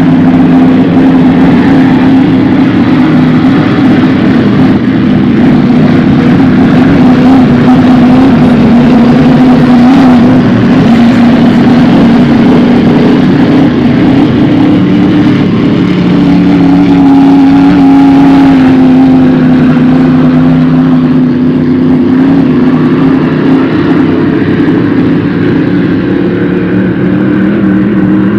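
Racing hydroplane engines running at full speed, a loud continuous drone whose pitch drifts and shifts as the boats pass, briefly rising in pitch around the middle.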